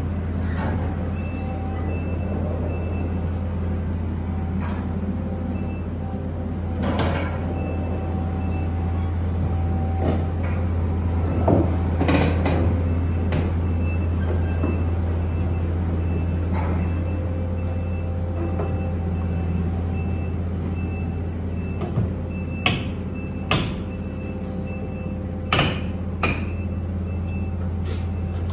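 A steady low engine drone, with a faint high beeping that comes and goes in short runs and a scattered handful of sharp knocks, several of them near the end.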